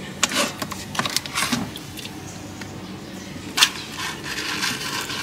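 Hand packing raw catfish into a glazed clay jar on a layer of coarse rock salt: the salt grains crunch and scrape against the jar's walls in short, irregular bursts, with one sharp click about three and a half seconds in.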